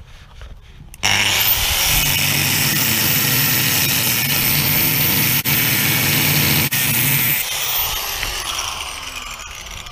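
Makita 115 mm angle grinder switched on about a second in, its motor whining up to speed, then its thin cutting disc cutting into the rusty steel rubbing strake of a narrowboat hull. About seven and a half seconds in it is switched off and the whine falls slowly as the disc spins down.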